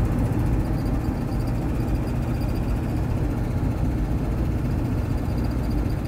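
Steady low rumble of a vehicle on the move, engine and road noise without change.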